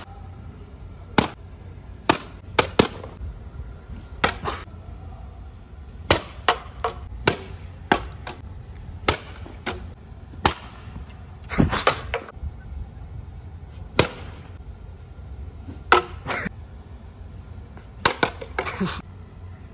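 Plastic bottles being struck with a golf club and a dustpan and clattering onto brick paving: a string of sharp, irregular knocks and clacks.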